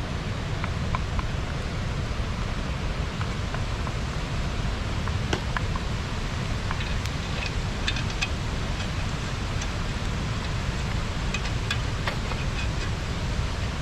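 Steady low rush of river water spilling over a small dam, with scattered small crackles and clicks, mostly in the second half.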